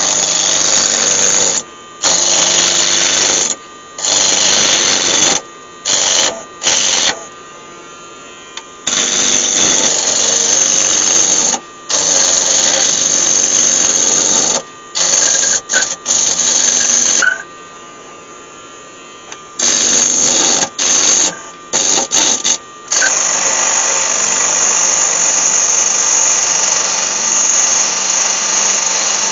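Wood lathe turning a square Iroko blank while a roughing tool knocks its corners off: loud, rough cutting noise in passes of a second or two with short breaks, then one long continuous cut over the last six seconds. Under the cuts run the steady hum of the lathe and an extractor fan.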